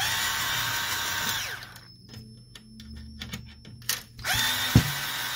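Power screwdriver running twice, each time with a steady whine for about a second and a half that then winds down, as it backs out screws.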